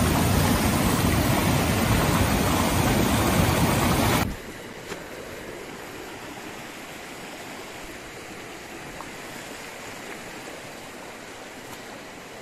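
Loud rushing of a fast stream over rocks, cut off abruptly about four seconds in and replaced by the much quieter, steady flow of a shallow stream.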